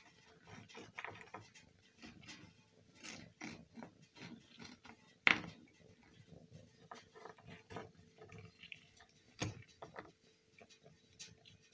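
Tabby cat chewing and crunching pieces of biscuit close up: an irregular run of small crunching clicks, with a louder sharp knock midway and another near the end.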